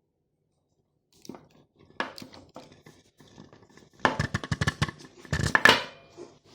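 Plastic vacuum storage container with built-in grinder being handled and worked: a run of crackly clicks and crunches, a few at first, then a dense stretch of rapid clicking from about four to six seconds in.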